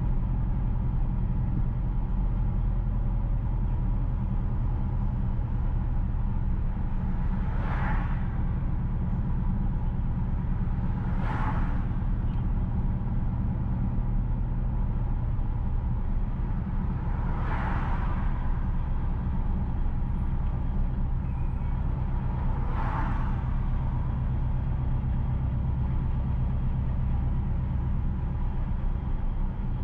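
Car driving along a paved road: a steady low rumble of engine and tyre noise, with four brief whooshes swelling over it and spread through the stretch.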